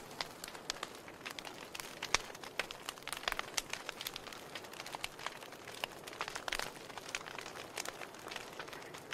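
Wood fire burning in a fireplace, crackling: irregular sharp pops and snaps over a soft hiss, with a louder pop about two seconds in.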